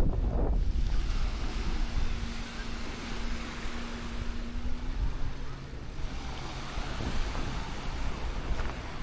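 Black Sea surf washing on the shore, with wind buffeting the microphone in low rumbling gusts near the start. A faint steady hum runs through the middle few seconds.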